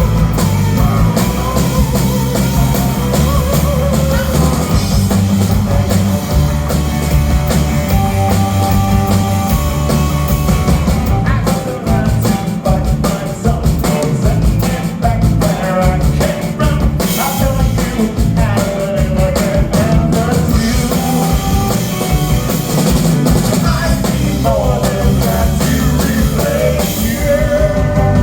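Live rock band playing a song: drum kit, bass and guitar, with a singing voice over them.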